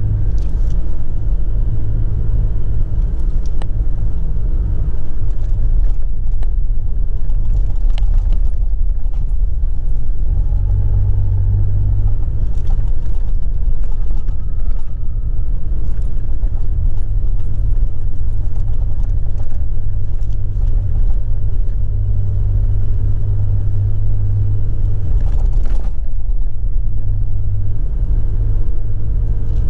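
A vehicle driving over soft beach sand: a loud, steady low rumble of engine and drive noise.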